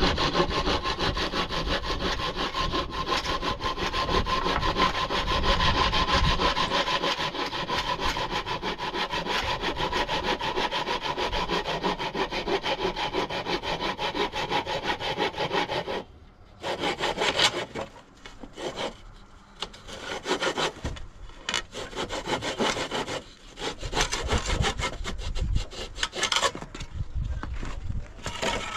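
Handsaw cutting through an old wooden pole in steady back-and-forth strokes. About sixteen seconds in the sawing stops suddenly, followed by shorter, broken strokes and scrapes on the wood.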